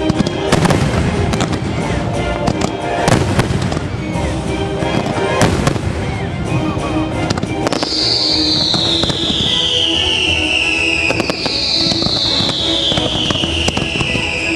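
Show fireworks going off: sharp bangs about half a second, three seconds and five and a half seconds in, amid constant crackling, over the show's music. From about eight seconds in, two long whistles glide down in pitch, one after the other.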